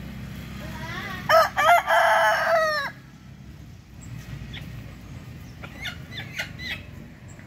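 A rooster crowing once: a choppy start, then a long held note that drops away at the end. A few short, fainter calls follow a few seconds later.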